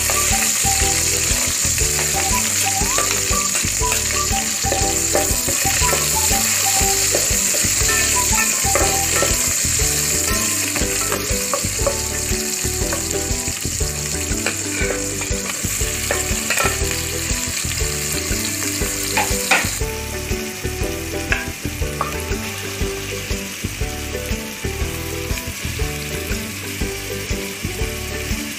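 Garlic and sliced onion sizzling in hot cooking oil in an aluminium pot, with occasional knocks. The high sizzle drops off suddenly about two-thirds of the way through, and a softer frying sound goes on.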